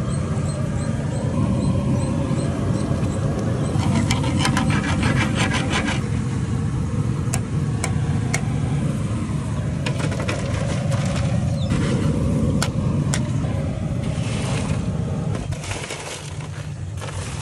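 Cauliflower pakoras deep-frying in a large iron kadai of hot oil: a steady sizzle over a low rumble, with a quick run of taps and scattered clicks and scrapes of a metal slotted spoon against the pan. Quieter near the end.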